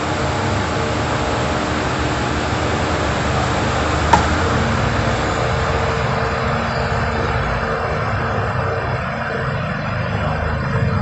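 Steady rushing background noise, with a single sharp click about four seconds in.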